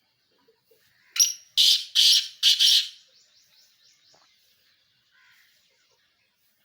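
A pheasant calling: four loud, harsh notes in under two seconds, starting about a second in, followed by a run of faint, rapid, repeated notes.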